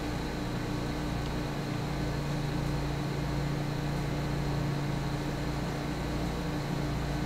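A steady low hum with a faint high-pitched whine above it, unchanging throughout.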